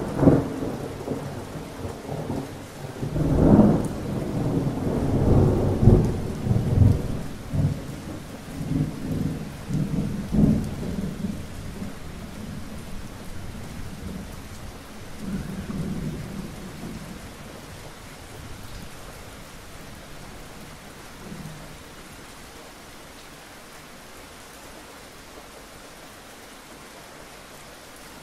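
Thunder rumbling over steady rain, in several loud rolling swells that die away about halfway through, leaving only the even hiss of rain.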